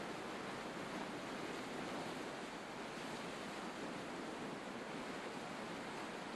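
Steady rush of sea surf and strong gale wind on the microphone, with no distinct events.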